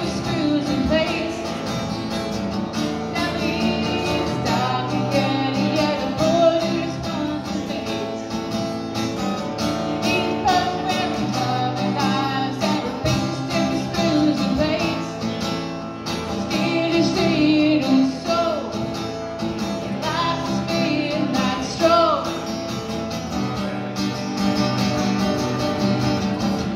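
A man singing a comic song while strumming an acoustic guitar, performed live.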